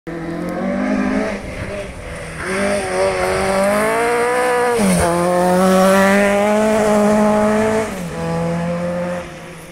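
Rally car engine at high revs as the car approaches and passes on a gravel stage. Its note climbs, dips sharply for a moment about five seconds in, then is loudest as it goes by, and the pitch drops and fades near the end.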